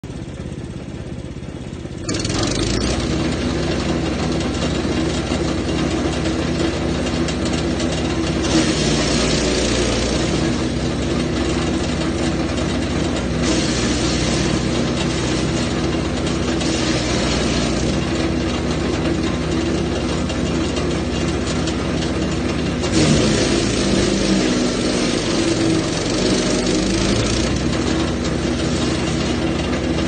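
Jansen GTS-1500E wood chipper running at speed, chewing eucalyptus branches in several noisy spells of crackling and shredding over its steady engine note. The sound gets much louder about two seconds in. The engine pitch dips under the load of a branch about three-quarters of the way through.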